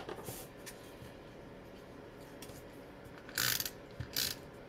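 Two short rasping scrapes, about three and a half and four seconds in, from paper-craft supplies being handled at the worktable.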